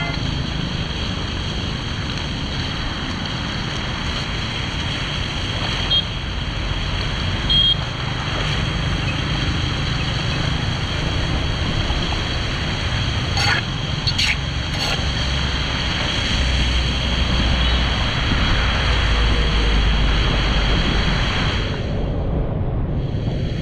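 Steady rushing noise with a low rumble, typical of floodwater pouring through a cleared storm drain, with a few sharp clicks about halfway through.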